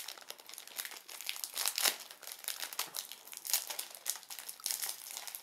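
Plastic wrapper of a chocolate wafer bar crinkling in a rapid run of crackles as it is worked at to get the stubborn packaging open.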